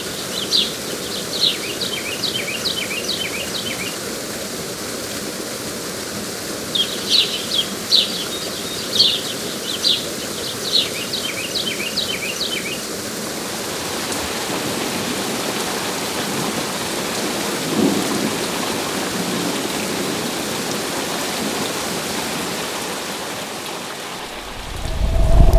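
Ambience of steady rain with a bird chirping in two bouts of quick repeated notes during the first half. The rain grows heavier later on, and near the end a loud, deep rumble swells up.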